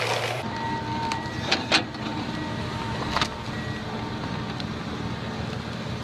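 Heavy land-clearing machinery working: an engine running steadily under a thin high whine, with a few sharp cracks about one and a half and three seconds in.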